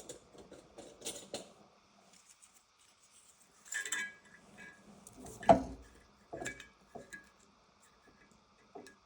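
Scattered clicks and knocks of hands handling metal at a drill press, with a light metallic clink about four seconds in and a heavier knock a second and a half later, then a few smaller knocks.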